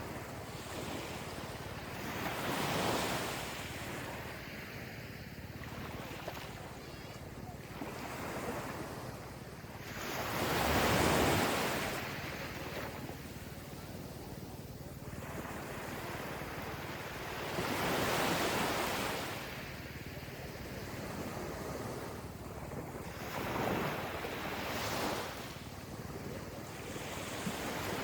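Gentle ocean waves rolling onto a beach: four surges of surf wash, several seconds apart, the one about eleven seconds in the loudest.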